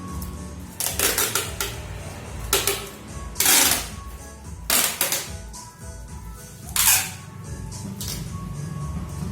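Sharp knocks and clatter from work on a wooden packing crate, about six separate strikes with a longer scraping noise in the middle, over steady background music.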